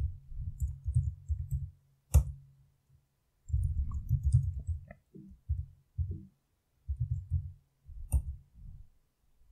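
Typing on a computer keyboard: quick runs of muffled keystrokes in several bursts, with two sharper clicks, one about two seconds in and one about eight seconds in.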